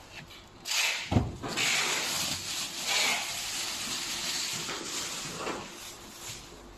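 Clear plastic wrapping rustling and crinkling as it is pulled off a machine, with a dull thump about a second in.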